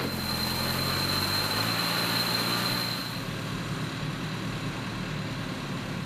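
Heavy construction machinery engine running steadily, with a high steady whine over it for the first half; about halfway through the sound changes to a slightly quieter engine rumble.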